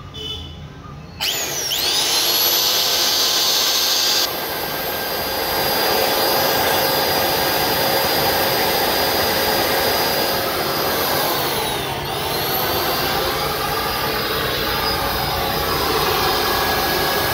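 Gaocheng GC-H82P electric planer's universal motor switched on about a second in and running at full speed with a steady whine, on a test run straight from the mains after its damaged armature was replaced. Its pitch dips briefly and recovers about two-thirds of the way through.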